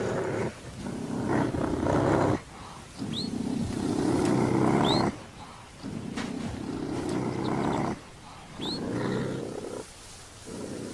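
A series of about five drawn-out, rasping growls, each a second or two long with short breaks between, from a leopard and a honey badger locked in a fight, the leopard's jaws clamped on the badger's neck as it strangles it. Faint high chirps of a bird rise now and then behind them.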